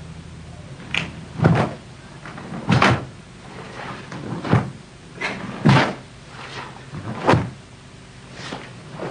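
Sharp snaps of a karate gi and thuds of footwork on a studio floor as kata strikes and stances are performed: about nine irregularly spaced hits, a few with a heavier low thud.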